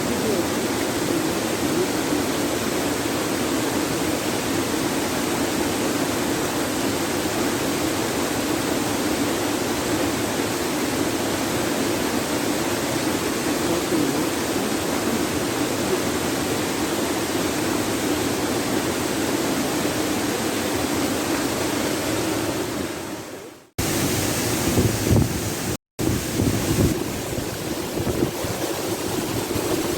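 Steady, loud rush of falling water from a waterfall. It fades out about 23 seconds in, comes back suddenly after a cut, and drops out once for a moment a couple of seconds later.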